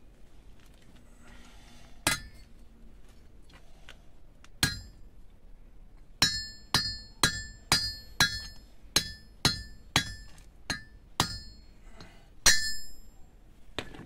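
Hammer striking a small metal part held in pliers against a steel stand, each blow ringing briefly. Two single blows, then a quick run of about a dozen at roughly two a second, then one harder blow near the end with a longer ring.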